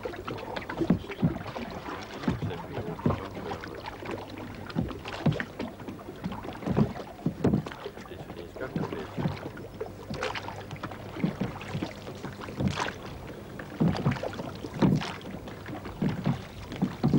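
Small wooden rowboat being rowed: irregular wooden knocks of the oars in their oarlocks and against the hull, with splashes of the oar blades, over a low steady hum.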